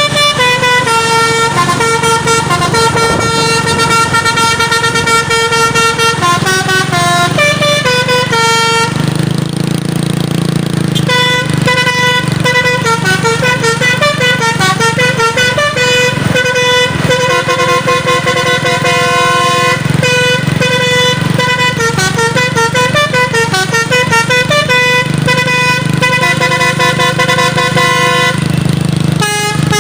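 Truck's telolet basuri multi-tone horn playing a fast, loud melody note by note. There is a short break in the tune about nine seconds in, and a steady low hum runs underneath.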